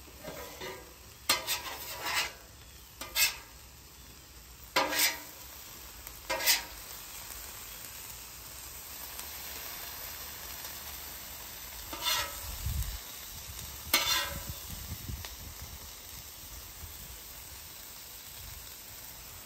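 Metal griddle spatulas scraping and clacking on the flat top's steel surface as chopped steak and vegetables are scooped into a bun, several separate strokes, over a faint steady sizzle of food cooking on the griddle.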